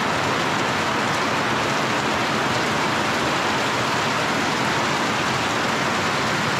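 Heavy rain pouring steadily, heard from under a plastic tarpaulin, with water running off the tarp's edges onto the wet paving.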